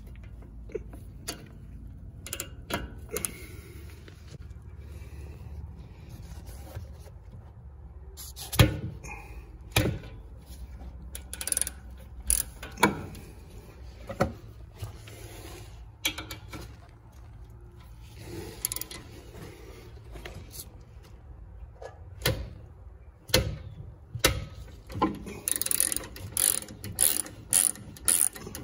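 Socket ratchet with an E18 Torx socket clicking in short strokes as it loosens the brake caliper mounting bolts, with scattered knocks and clinks of metal tools. Near the end the clicks come in a fast run as a loosened bolt is ratcheted out.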